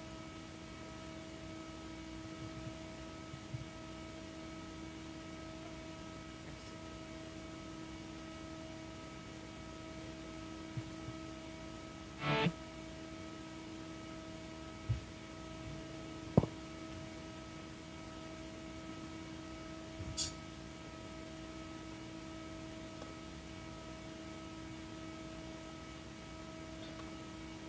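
Steady electrical hum from a live band's PA system, idling between songs. A few scattered clicks and knocks are heard, the loudest about 16 seconds in.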